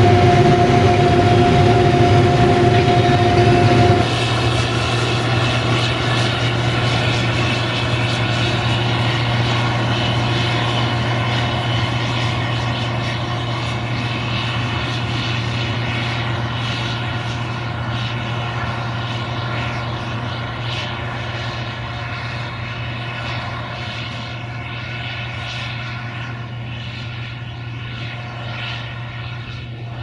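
Case IH 2166 Axial-Flow combine's machinery running steadily with a whine for the first few seconds. It cuts suddenly to the steady hum of a camera drone's rotors, which fades slowly.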